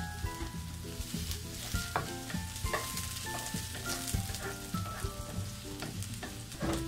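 Chopped onion sizzling as it fries in hot olive oil in a skillet, with a wooden spatula stirring and scraping the pan in occasional short knocks.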